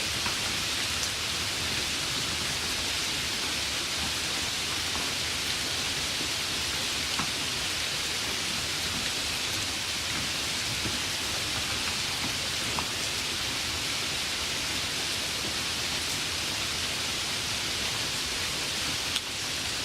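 Steady light rain: an even hiss with a few faint drop ticks. A single sharp click sounds shortly before the end.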